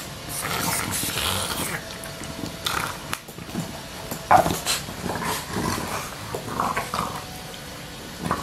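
Two English bulldogs play-fighting, growling at each other in irregular outbursts, with one louder, sharper outburst about halfway through.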